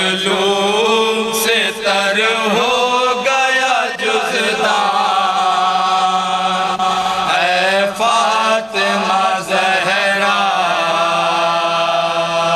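A group of men chanting a noha, an Urdu mourning lament, in long wavering held lines with a steady underlying drone note.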